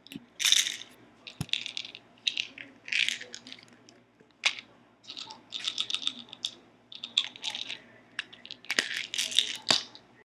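Pills rattling in a small plastic pill bottle in repeated short shakes, with a few sharp clicks of items being set down on the stone countertop.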